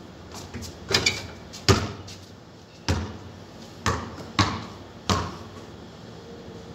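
A basketball bouncing on a concrete court: about six sharp thuds at uneven spacing, each fading briefly.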